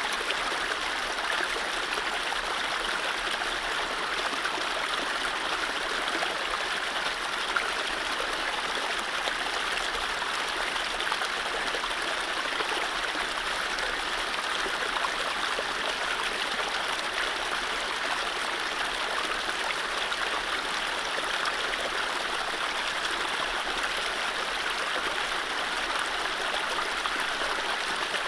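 Mountain stream running over low rapids: a steady, even rush and gurgle of water.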